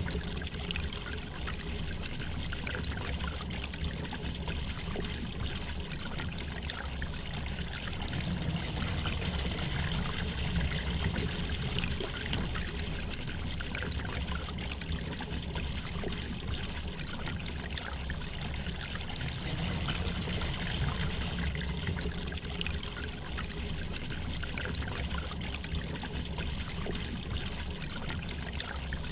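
River water flowing gently over stones, a steady trickling and babbling.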